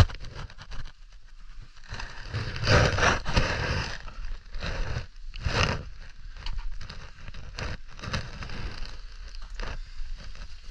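Irregular rustling, scraping and crackling of a caver's clothing and gear rubbing against rock while scrambling through a cave passage, with the loudest bursts about two to four seconds in and again near the middle.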